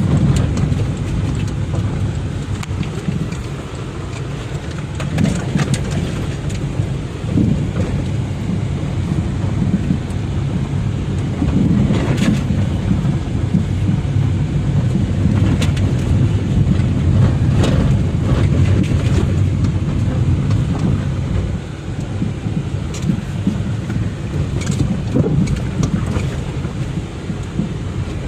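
Car driving on a rough dirt track: a steady low rumble of engine and tyres, with scattered knocks and rattles as it goes over bumps and holes.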